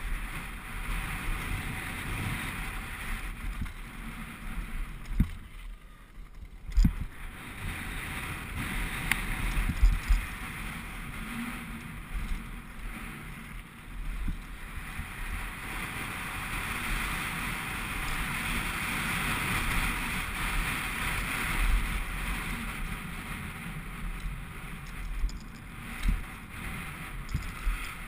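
Wind rushing over a helmet-mounted action camera's microphone, with the rumble of a downhill mountain bike's tyres on loose gravel and scattered knocks as the bike hits rocks. The rush drops away briefly about six seconds in, then builds again.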